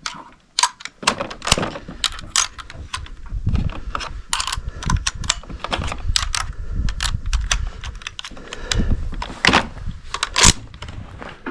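Irregular run of sharp metallic clicks and clinks from cartridges and rifle metal being handled while the rifle is reloaded, with some dull handling bumps underneath.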